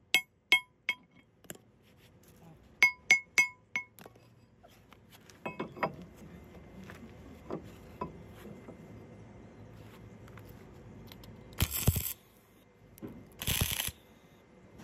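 Steel hammer striking a steel bar: eight ringing metallic blows in two quick groups of four, then a few lighter clanks as the steel plate is positioned. Near the end come two short bursts of arc-welding crackle as the plate is tack-welded in place.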